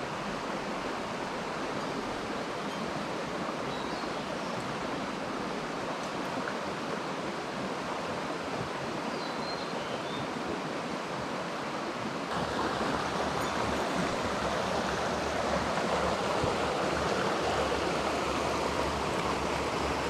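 Small mountain stream rushing over rocks and a little cascade, a steady rushing of water. About twelve seconds in it becomes louder and fuller.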